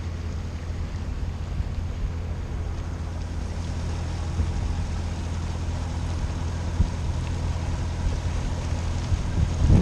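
A motor cruiser's engine running steadily under way, a low even hum, with wind buffeting the microphone. Near the end a louder gust briefly swells over it.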